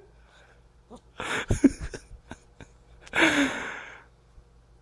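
Two short breathy vocal sounds, about a second in and about three seconds in, the second a sigh-like sound falling in pitch.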